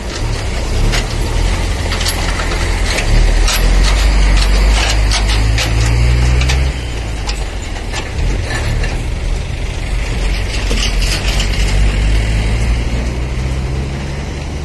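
A heavy road vehicle's engine running close by at low speed, loudest in the first half and dropping off suddenly about halfway through. Over it come many sharp clanks and rattles.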